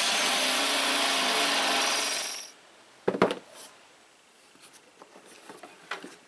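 Bench drill press boring a hole through a steel angle, running steadily and stopping about two and a half seconds in. Then a sharp clack and a few light clicks as a plastic tool case is handled and opened.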